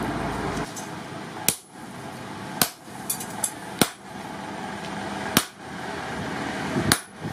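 Hand-hammer blows on a red-hot mild-steel axe head over an anvil plate, driving a steel punch into the eye: about five heavy metallic strikes, roughly one every second and a half, each with a short ring, and a couple of lighter taps between them.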